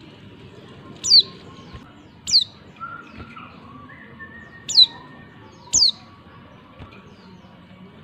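Female white-eye (pleci) giving four short, sharp, high call notes, each dropping steeply in pitch, spaced one to two and a half seconds apart. These are the calls used to prompt male white-eyes to answer and sing.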